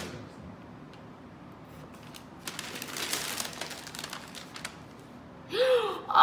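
Gift wrapping paper crinkling and tearing as a present is unwrapped, for a couple of seconds in the middle. Near the end a woman gives a short exclamation, rising then falling in pitch.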